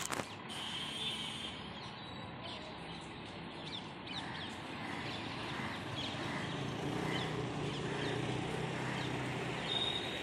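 Street traffic ambience with a motor scooter engine approaching and getting gradually louder over the second half, while birds call repeatedly in the background.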